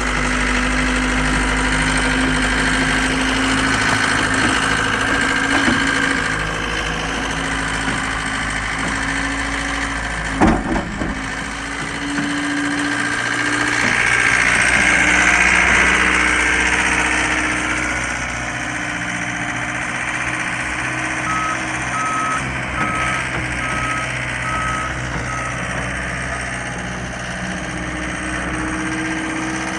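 2021 John Deere 324G skid steer's diesel engine running, growing louder for a few seconds in the middle as the machine works. A single sharp knock comes about a third of the way in. Later there is a short run of backup-alarm beeps as it reverses.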